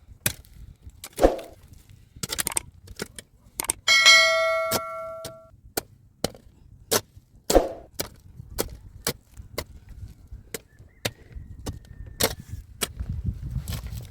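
Repeated hand-tool strikes on stone and earth, typical of a pickaxe: sharp knocks at an uneven pace, about one a second or faster. One strike about four seconds in rings out with a clear metallic tone for over a second.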